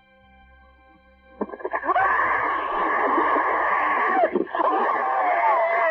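An elderly woman screaming over a telephone line as she is dragged away. The screams are harsh and distorted, start about a second and a half in, and break off briefly near the end.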